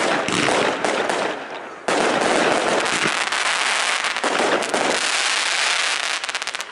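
Aerial fireworks shells bursting overhead with dense crackling, a fresh loud burst starting about two seconds in. Near the end a rapid run of sharp pops, then the sound stops suddenly.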